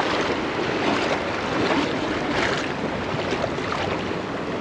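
Shallow surf washing and sloshing around a wading angler, with wind buffeting the microphone.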